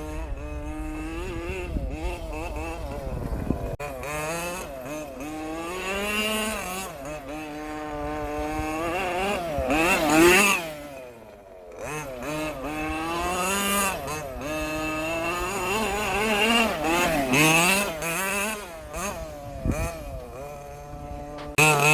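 HPI Baja large-scale RC car's small two-stroke petrol engine revving up and down over and over as it is driven, easing off briefly around eleven seconds in before picking up again.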